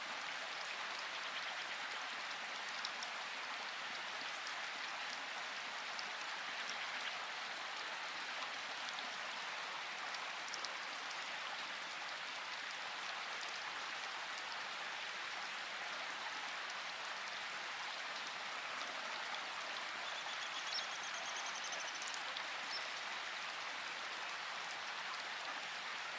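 Steady rainfall, an even hiss with scattered individual drop ticks.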